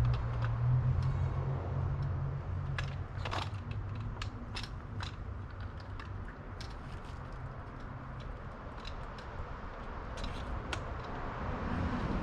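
Scattered light clicks and taps of small metal bike parts being handled, with headset spacers and a headlamp mount going onto a fork's steerer tube, over a low steady hum.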